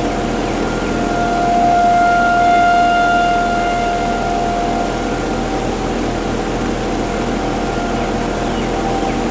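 Federal Signal outdoor warning sirens sounding a steady tone for a severe thunderstorm warning. The nearest siren swells to its loudest about two to three seconds in, then fades back, leaving a fainter steady tone from another siren at a slightly higher pitch.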